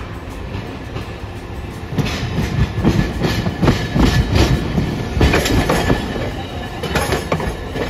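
Hiroden streetcar running past, its wheels clacking over the track. The clacks begin about two seconds in as it gets louder, in a quick irregular string.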